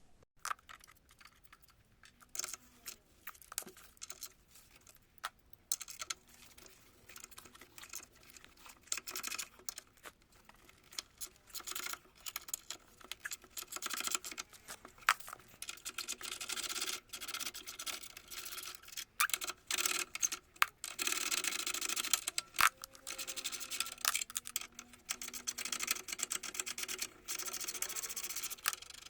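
Wrench loosening the bolts of a car's front sway bar end link: rapid, irregular metallic clicking and scraping, getting busier about halfway through.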